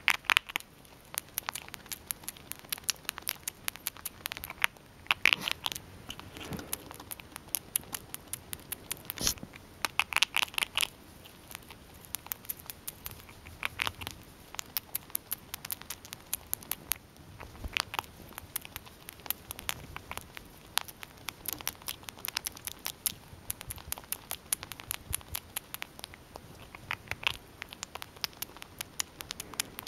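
Gray squirrel gnawing and chewing a hard treat close up: a rapid run of small crunchy clicks, several a second, with louder clusters every few seconds.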